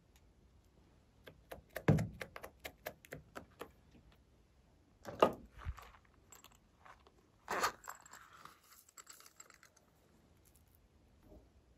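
Small plastic toys and containers handled close to the microphone: a quick run of clicks and taps, two louder knocks, then a sharp hit followed by a scratchy rustle.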